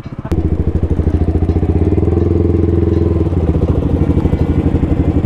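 Motorcycle engine idling with a steady, even pulse. It comes in suddenly near the start, and the revs lift slightly about two seconds in before settling back.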